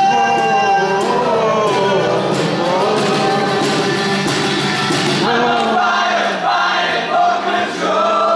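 Several men singing together in harmony, live, as one group vocal. The instrumental backing drops away about five seconds in, leaving the voices nearly unaccompanied.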